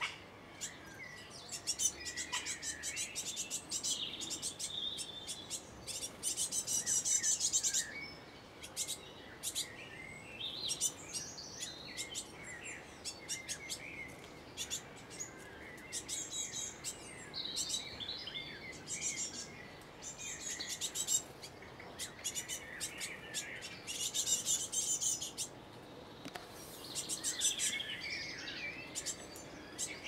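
Fledgling great tit begging for food: bouts of rapid, very high-pitched calls, each a second or two long, repeated over and over, with shorter chirps in between.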